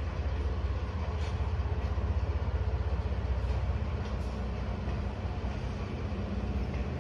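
Diesel locomotive's engine, a DE10, running with a steady low throb as it moves slowly along the station tracks.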